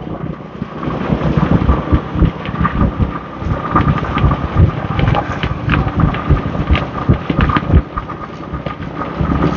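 Wind buffeting the microphone on a moving motorbike, a loud, uneven rumble, with the hum of the motorbike and street traffic underneath.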